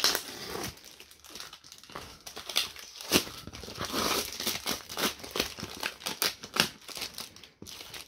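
Cardboard mailer box being opened by hand: a pocket knife slitting and scraping along packing tape, the tape ripping off and the card creasing as the flaps are pulled open, in a dense run of short irregular rips and scrapes.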